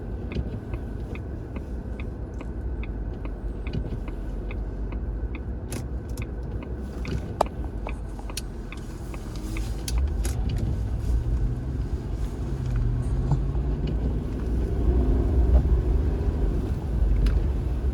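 A car driving on a snowy road: a steady low engine and tyre rumble that grows louder about halfway through and again near the end. Light clicks repeat a couple of times a second in the first few seconds.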